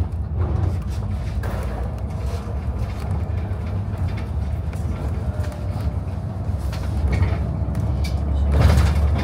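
City bus on the move, heard from inside: a steady low rumble of engine and road noise, swelling louder for a moment near the end.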